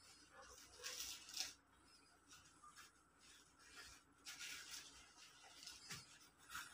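Faint rustling of plastic gift wrap and gold ribbon as a present is untied, in a few short bursts.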